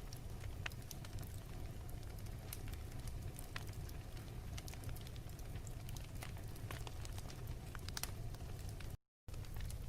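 Wood fire crackling in a fireplace: irregular sharp pops and snaps over a steady low rumble. The sound cuts out to silence for a moment about nine seconds in.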